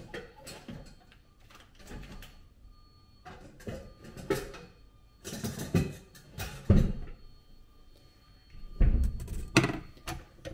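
Kitchen bowls and utensils being handled and set down while making dough: an irregular series of knocks and clatters, loudest about two thirds of the way in and again near the end.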